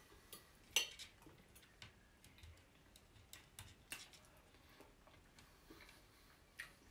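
Metal knife and fork clinking and scraping on a ceramic plate: a sharp clink about a second in, then scattered lighter taps.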